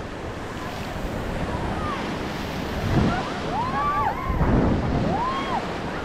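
Whitewater river rapids rushing and splashing around an inflatable raft, with wind buffeting the microphone. A couple of rising-and-falling shouts from the rafters come through past the middle.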